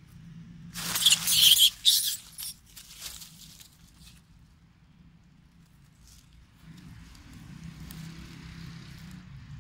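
Loud close rustling and crackling for about a second and a half, a little way in, with a few smaller crackles after, then a fainter steady rustle over the last three seconds.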